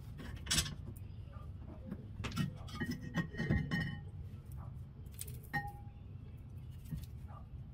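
Light metallic clinks and taps as a Toyota Sienna's front disc brake pad support plate and its bolts are handled and lifted off, with a few brief ringing tones of metal on metal about three to four seconds in and again near the middle.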